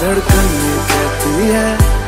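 Background music: a song with a singing voice over a beat, and deep bass notes that drop in pitch twice.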